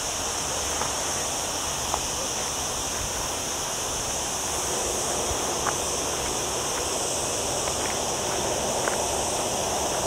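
Cicadas singing in a steady, high-pitched continuous drone over a constant rushing hiss, with a few faint ticks scattered through.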